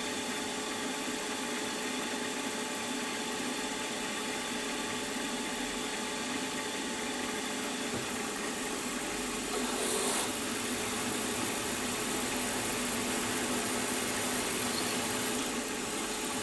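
Milling machine spindle running steadily with a small twist drill in the chuck, a constant hum, with a short hiss about ten seconds in.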